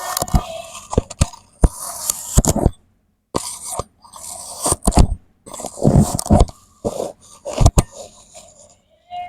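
Kinetic sand being cut: repeated crisp crunching, scraping strokes with sharp knocks, broken by short pauses.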